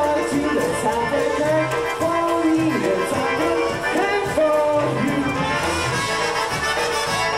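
A polka band playing live dance music, with a steady bass beat.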